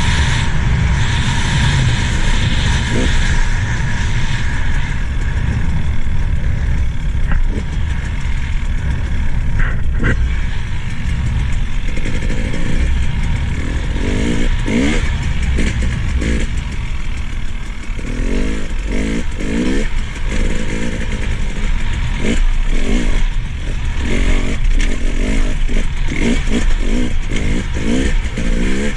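KTM 300 XC-W TPI's fuel-injected two-stroke single-cylinder engine revving up and down as the bike is ridden over a muddy dirt track, with a steady wind rush on the microphone. The engine is new and being broken in. The rises in pitch come in quick repeated bursts through the second half, with a couple of knocks about ten seconds in.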